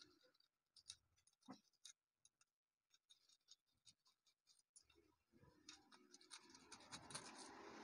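Faint scratching and rubbing by hand on the polished face of a black granite tombstone plaque, around its gold-painted engraved lettering. Scattered light ticks at first, becoming a steadier scratching about five seconds in.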